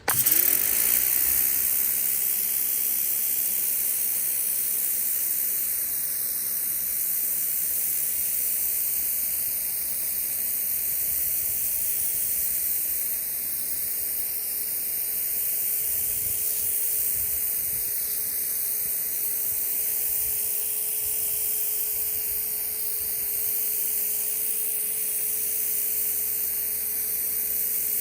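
Stihl RE90 electric pressure washer with a rotary nozzle spraying water onto concrete: a steady hiss of the water jet, with a faint steady tone underneath.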